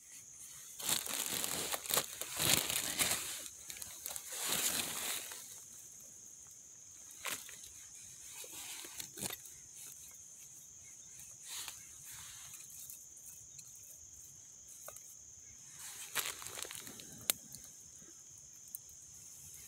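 Plastic bag crinkling in several bursts over the first five seconds, then sparse small crackles from a small wood cooking fire, over a steady high hiss.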